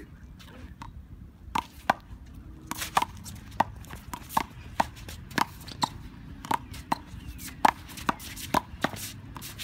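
Rally of one-wall handball: a small rubber ball smacks sharply, about twice a second, off bare hands, the concrete wall and the court surface, each hit with a short ringing ping.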